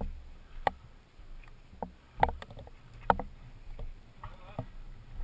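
Boots walking on a rocky gravel trail: a handful of separate crunches and knocks about a second apart, over a low rumble.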